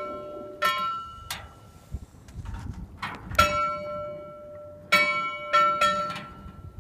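Bell on a green navigation buoy clanging irregularly as the swell rocks it, with about seven uneven strikes that each ring on with a metallic tone.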